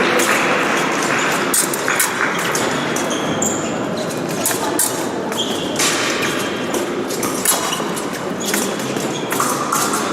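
Épée blades clicking and clashing, with fencers' feet on the piste, giving scattered sharp clicks and a few short metallic rings over the murmur of a large hall.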